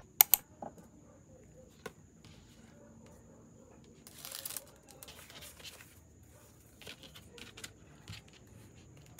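Sticker packing materials being handled: two sharp clicks at the start, then soft rustling and scattered ticks, with a brief louder crinkle of paper or plastic about four seconds in.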